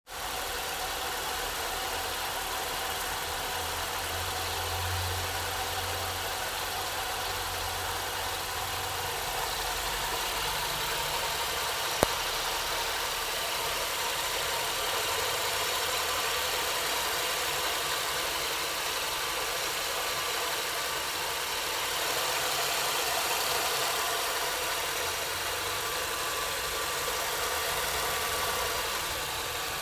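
Chevrolet Celta 2011's VHCE four-cylinder engine idling steadily with the strange noise that appeared after the car drove through flooded streets. A single sharp click about twelve seconds in.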